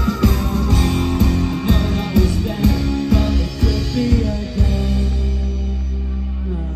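Live rock band playing with electric guitars, bass and a steady drum beat; about four and a half seconds in the drums stop and a held chord rings on, slowly fading.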